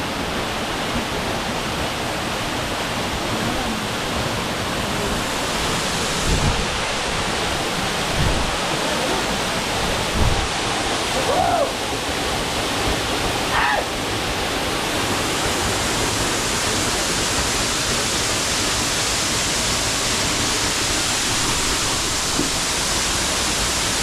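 Waterfall pouring steadily onto rocks into a shallow pool: a constant, even rush of water. A few brief low thumps come in the first half.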